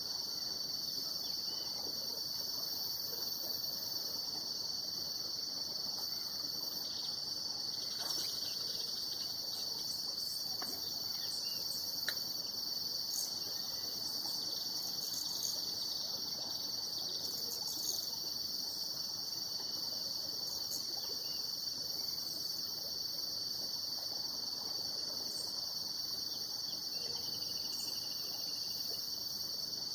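A steady chorus of insects, an unbroken high-pitched trilling, with a few faint ticks in the middle.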